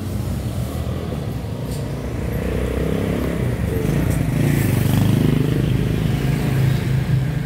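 Motorcycle engines of passing street traffic running, one growing louder and passing close about halfway through.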